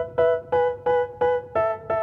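Background music: a piano-like keyboard plays short, sharply struck notes in a steady repeated pattern, about three notes a second.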